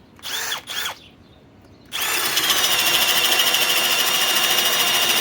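Hercules cordless drill driver in low gear (speed 1) starting about two seconds in and running steadily under load as it bores a 1 1/2-inch spade bit, a high steady whine. It is preceded by two brief noisy sounds.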